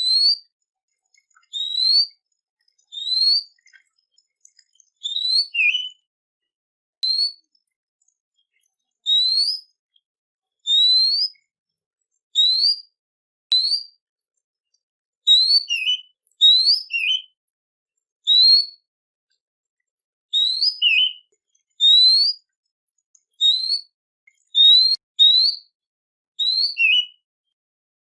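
A songbird repeating short, clear, rising whistled notes, roughly one a second, some followed by a brief lower note, played as a birdsong training recording.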